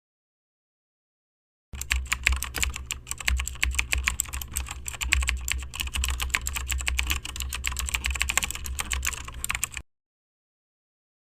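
Fast typing on a computer keyboard. A dense stream of key clicks starts about two seconds in and stops abruptly about eight seconds later, with a steady low hum underneath.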